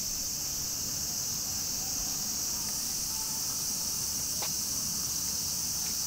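Cicadas chirring in a steady, unbroken high-pitched drone.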